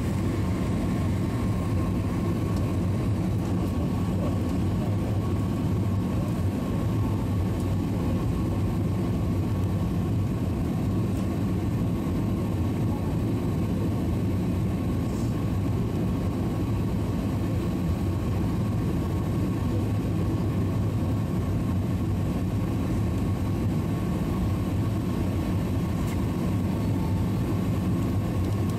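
Airliner cabin noise on the landing approach: a steady low rumble of engines and airflow heard from a window seat, with a faint steady whine above it.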